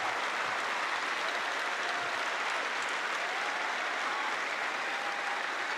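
Large stadium crowd applauding steadily, with scattered cheers.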